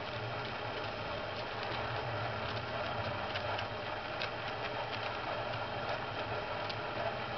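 A bull moose's hooves clicking on a gravel path as it walks away, a scatter of sharp steps at uneven intervals. A steady low hum runs underneath.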